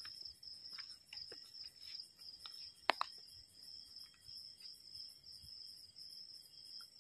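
Crickets chirping in a steady, high trill, faint throughout. A sharp double click sounds just before three seconds in.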